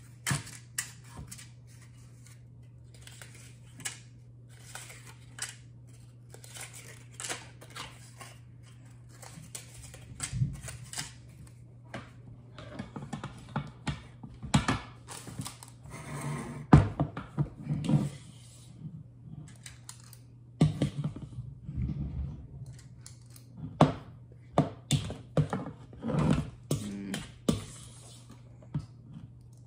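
Irregular clicks, clinks and scrapes of muffin tins and baking utensils being handled at a kitchen counter, with a sharp knock about two-thirds of the way in. A steady low hum runs underneath.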